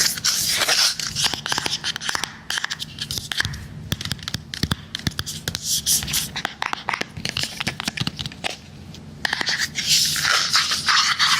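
Fingernails tapping and scratching on a hard device, ASMR-style: quick, irregular taps through the middle, with scratching at the start and again from about ten seconds in.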